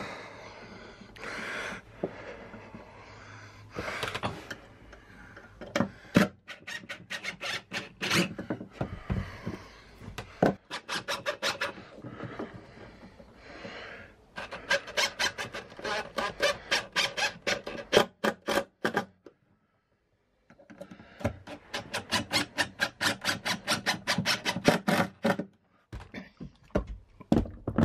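Cordless impact driver driving screws into timber, its rapid hammering clicks coming in several bursts a few seconds long.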